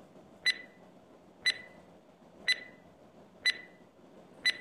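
Countdown timer sound effect: a short, sharp ticking beep once a second, five times, marking the seconds of a quiz countdown.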